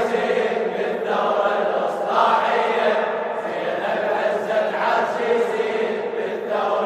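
Male chorus chanting the refrain of a Husseini latmiyya (Shia lament) in unison, in long, drawn-out melodic lines.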